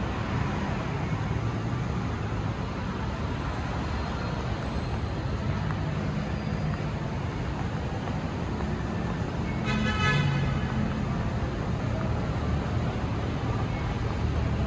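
Steady city traffic rumble, with a short horn toot about ten seconds in.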